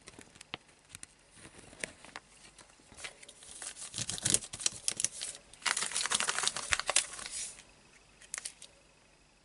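Thin clear plastic pocket page crinkling and crackling as it is handled and smoothed flat, in two dense bursts around the middle, with a few light clicks before and after.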